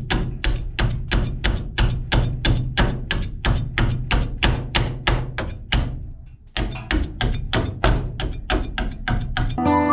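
Background music with a steady percussive beat, wood-block-like clicks about four a second over a bass line, dropping out briefly about six seconds in and giving way to a plucked, melodic passage near the end.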